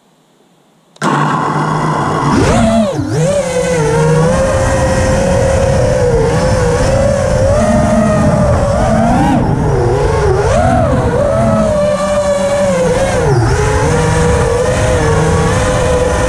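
Brushless motors and propellers of a 5-inch FPV racing quadcopter (Mr. Steele Silk V2 motors, HQProp 5x4.3x3 props) heard from the onboard camera. About a second in they spin up to a steady idle whine. Then they climb sharply in pitch at takeoff and keep whining, the pitch dipping and rising with every throttle change, over a rushing noise of prop wash.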